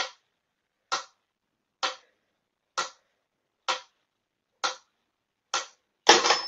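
Mechanical pyramid metronome ticking steadily, about once a second, seven ticks in all. About six seconds in, a louder, noisier sound begins.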